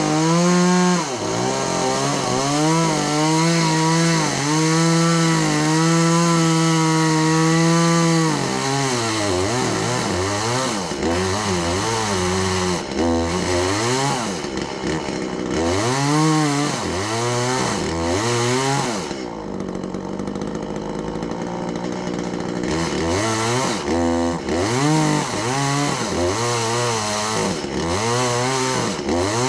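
Chainsaw running: held at high, steady revs for the first several seconds, then revved up and down over and over. It drops to a low idle about two-thirds through, then revs up and down again.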